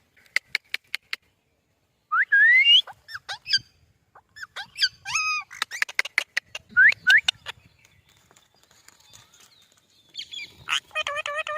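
Parrot making a row of sharp clicks, then short rising whistles and squawky calls, and near the end a quick run of repeated pitched notes.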